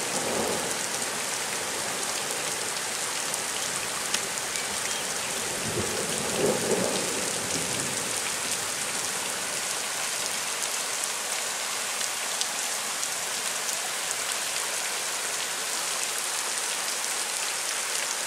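Heavy rain coming down steadily, a dense hiss full of small pattering drops hitting roofs and surfaces. About six seconds in, a low rumble of distant thunder swells briefly and fades.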